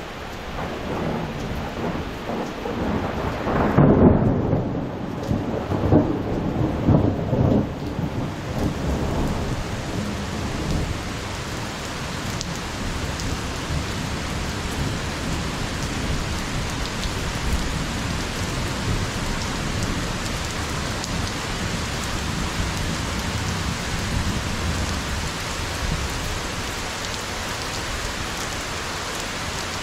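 Thunder rolling over steady heavy rain, loudest about four seconds in, with a few more rolls until about eight seconds in; after that the rain goes on alone.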